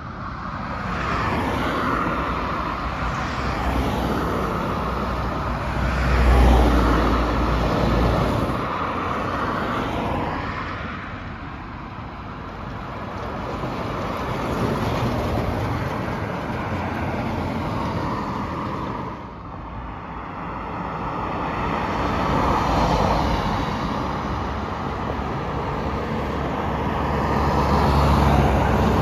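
Road traffic passing close by: trucks and cars going by one after another, their engine and tyre noise swelling and fading. The heaviest low rumble comes as a large vehicle passes about six seconds in and again near the end.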